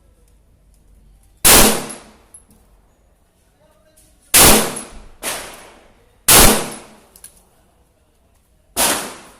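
9mm Glock 17 MOS pistol in a KPOS Scout carbine kit fired single shots: four loud shots a second and a half to three seconds apart, each with a short ringing decay, and a fainter report about a second after the second shot.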